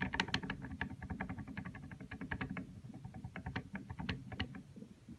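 Rapid, irregular metallic clicking and rattling of gearbox parts being handled, over a steady low hum.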